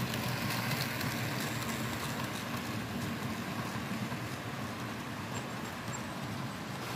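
Rivarossi HO-scale model train, the streamlined Tennessean locomotive with its Southern passenger cars, rolling past on the layout track. It makes a steady low rumble of wheels and motor, easing off a little as the train moves on.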